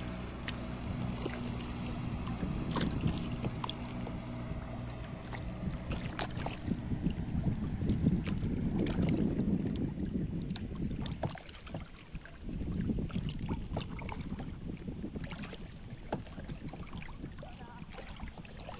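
A small boat's motor running steadily under way, with water washing and splashing along the hull. The motor's hum fades after about seven seconds, leaving the water noise.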